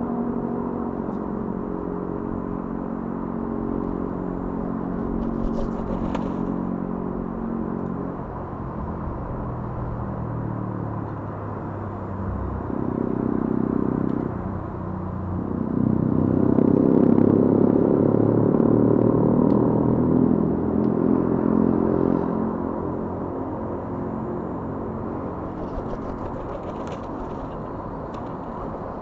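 A motor engine droning, its pitch drifting slowly; it grows louder about halfway through and eases off toward the end.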